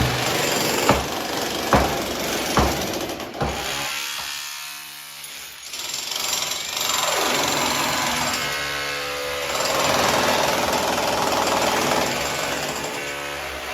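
Demolition work: sharp hammer blows at a little under one a second for the first few seconds, then a powered demolition hammer running in long stretches, a dense rattling noise with a droning pitch that swells and fades.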